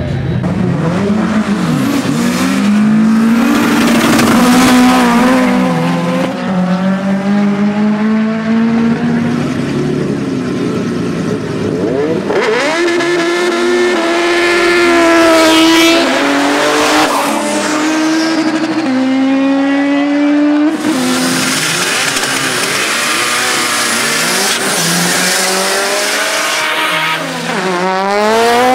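Race cars accelerating flat out in drag-strip runs. Engine pitch climbs through each gear and drops back at every shift, over several separate runs one after another.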